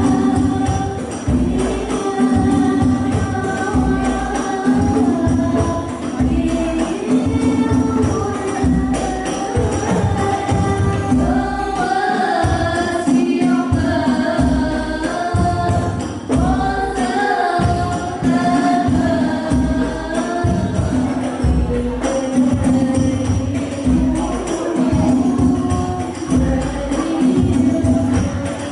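Sholawat sung by a group of voices in unison over a rebana frame-drum ensemble with jingles, amplified through a PA sound system. The drums keep a steady beat under the melody.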